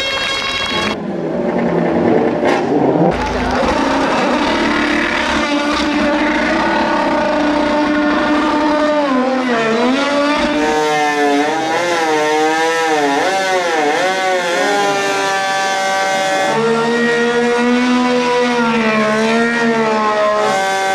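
Formula One car doing donuts, its engine revving hard with the pitch swinging rapidly up and down as the rear tyres spin. The revs hold steadier near the end.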